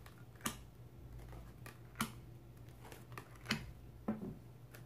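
Tarot cards being laid down one at a time on a table: a handful of sharp, short card taps, the loudest about a half, two and three and a half seconds in.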